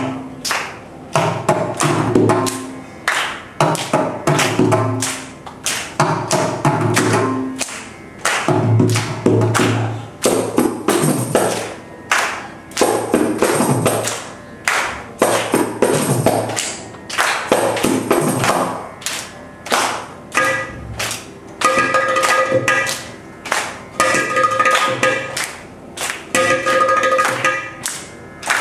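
South Indian Carnatic percussion ensemble (mridangam, kanjira, ghatam and morsing) playing a tani avartanam, the percussion solo section: a fast, dense run of sharp taps mixed with deep bass strokes. About two-thirds of the way through, a repeating pitched figure joins the drumming.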